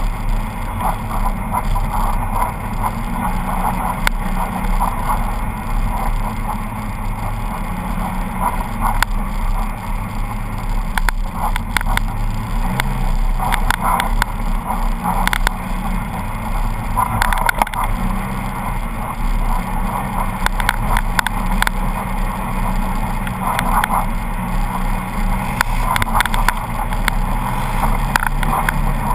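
Polaris RZR 800 side-by-side's engine running under load on a downhill run, its pitch rising and falling as the throttle changes. Bursts of rattling and clattering come over the bumpy ground, several times through the middle and near the end.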